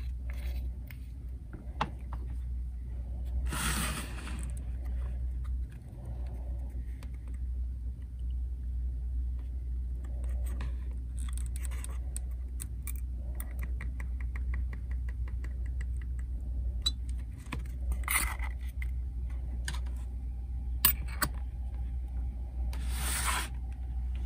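Small clicks, taps and scrapes of hand work on plastic model-kit parts, with three short hissing bursts and a brief run of rapid ticks, over a steady low hum.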